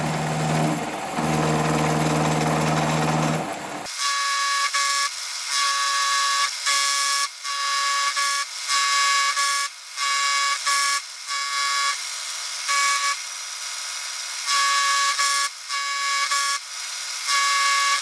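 Vertical milling machine running with a ball-nosed end mill cutting brass. About four seconds in the low motor hum drops away, and a high-pitched squeal comes and goes in short, irregular spells as the cutter bites into the metal.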